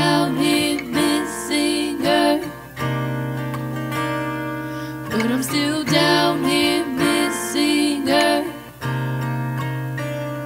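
Woman singing over strummed acoustic guitar. She sings two phrases, and the guitar carries on alone between them and after the second, near the end.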